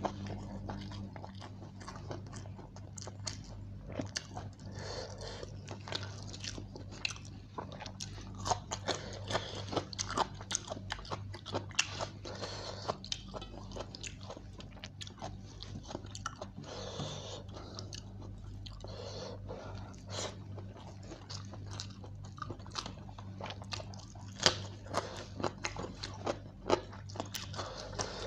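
Close-miked chewing and lip-smacking of mouthfuls of chicken biryani eaten by hand, many small wet clicks, with a steady low hum underneath.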